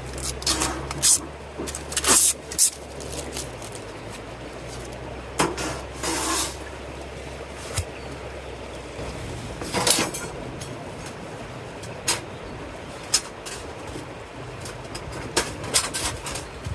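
Gear being handled: scattered sharp clicks and knocks with a few short scraping rustles, over a low steady hum that stops about nine seconds in.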